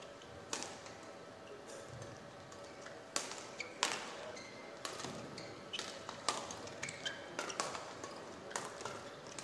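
Badminton rally: rackets striking the shuttlecock back and forth in a string of sharp hits, the loudest about four seconds in. Short high squeaks of court shoes on the mat sound between the shots.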